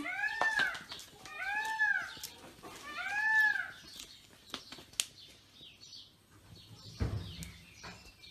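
Young Spanish mastiff whining three times, each a high cry that rises and falls in pitch, followed by a few faint clicks.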